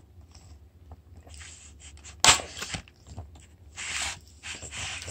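Crinkling and rustling of a clear plastic tray as a child's hands rummage through dried persimmons, in several short bursts, with one sharp, louder clack a little over two seconds in.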